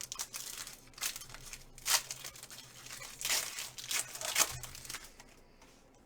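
A trading-card pack wrapper being torn open and crinkled by hand: a run of irregular crackling rustles lasting about five seconds, then dying away.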